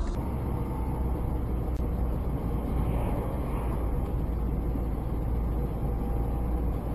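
Steady engine and road rumble of a vehicle cruising on a highway, heard from inside the cab through a dashcam microphone.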